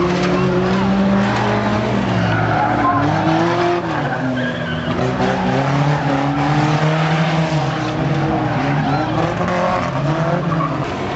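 Several pre-1976 banger racing cars' engines revving hard together, their pitches rising and falling as the cars push and ram one another on the dirt track.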